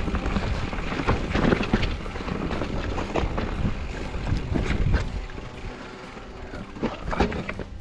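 Mountain bike rolling fast over rough, rocky trail: repeated knocks and rattles from the wheels, suspension and frame over a steady low rumble of wind buffeting the camera microphone.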